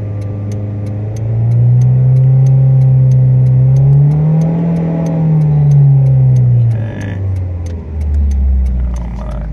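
A 2006 Suzuki Forenza's four-cylinder engine running fast in park. Its speed holds, climbs to a peak about halfway through, then drops off near the end. The turn-signal flasher ticks steadily throughout, about three ticks a second.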